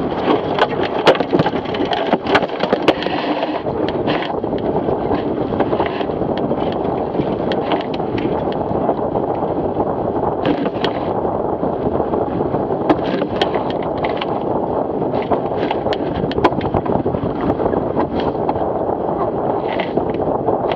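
Wind buffeting the microphone and water rushing past a Fireball racing dinghy's hull, with frequent sharp knocks and clicks from the hull and its fittings as the boat drives through chop.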